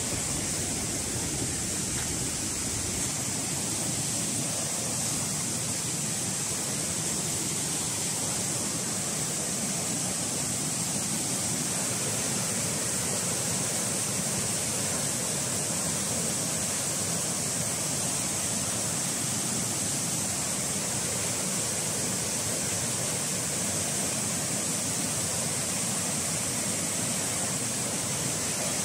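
Steady rush of a stream's headwaters: flowing water in rapids or a small fall, an even, unbroken hiss with no let-up.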